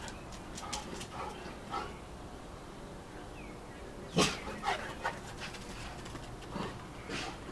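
A dog giving a few short barks, the loudest about four seconds in, with weaker ones following. Light clicks and rustles come before them.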